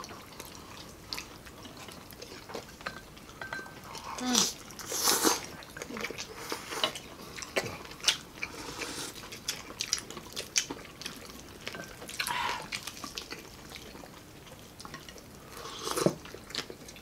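Several people eating close to the microphone: crunching and chewing crispy deep-fried pork belly (lechon kawali), with lip smacks. A few longer slurps of sinigang pork soup are heard from spoons.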